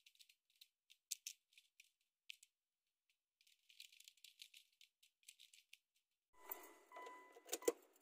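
Light clicking and rattling of plastic dashboard trim and small parts being handled and fitted around the ignition switch, then a fuller clatter ending in one louder click near the end.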